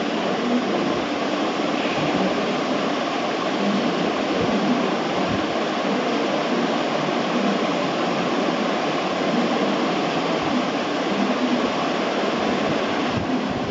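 Steady rushing noise of room ventilation, such as a fan or air-conditioning unit, running at an even level.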